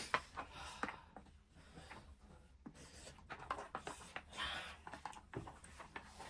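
Close-up eating and handling sounds at a bowl of ramen: scattered small clicks and scratchy scraping, with a couple of brief hissy swishes about halfway through.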